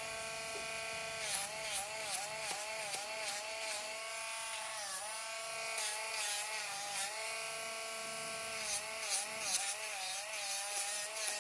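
Small cordless rotary nail grinder (Dremel-type) running on a dog's nails with a steady high whine. Its pitch dips and a gritty rasp rises each time it is tapped against a nail, in several short clusters of taps.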